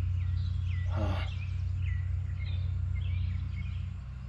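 Birds chirping repeatedly, short quick calls, over a steady low rumble, with a brief noisy rustle about a second in.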